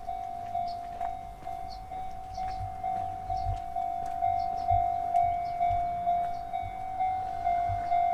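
Japanese railway level-crossing alarm ringing: one steady pulsing tone, about two strokes a second, growing louder toward the end.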